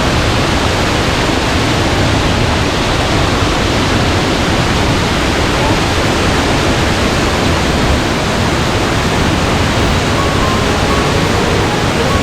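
Waterfall falling steadily into its pool close by: a loud, even rush of water with no breaks.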